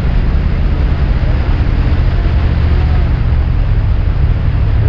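ATV engine running steadily under load, its tyres spinning in a deep mud hole.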